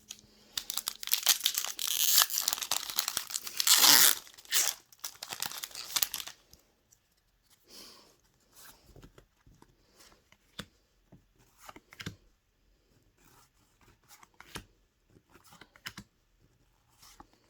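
Foil wrapper of a Pokémon booster pack being torn open: a loud crinkling rip lasting about six seconds. After it come only faint scattered rustles and clicks.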